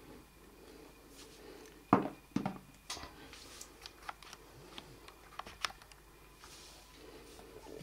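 A Nokia X6 smartphone being set down on a table: two knocks about two seconds in, the loudest sounds, followed by a few lighter clicks and taps as it is handled.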